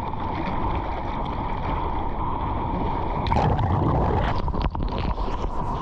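Water rushing and splashing against a surfboard as it moves through the sea, heard close up from a board-level action camera, with wind buffeting the microphone. A run of splashes comes about three seconds in.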